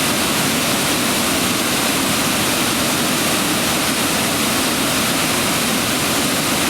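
Steady rush of water pouring down a river cascade.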